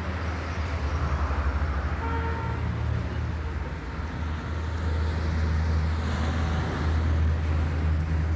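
A motor vehicle engine running steadily, a low sound with a pulsing beat, over street traffic noise.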